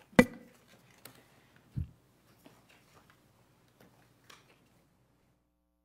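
Handling noise close to a microphone: a sharp knock just after the start, a low thump about two seconds in, then scattered faint clicks and rustles that die away.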